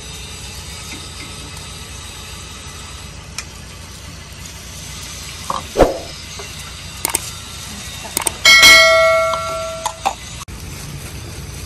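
Metal cooking utensils clinking against stainless-steel pots and a colander at a frying station: a few sharp clinks, then one loud clang about eight and a half seconds in that rings on for over a second before fading.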